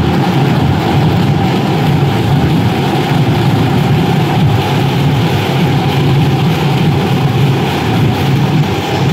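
Loud, steady din of a rally crowd packing a street, with a low engine rumble from a vehicle moving through it.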